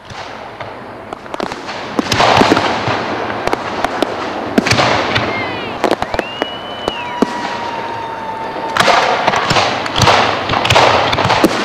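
Fireworks going off: a run of sharp bangs and crackling over a hiss, with a few whistles in the middle, one of them held for about two seconds.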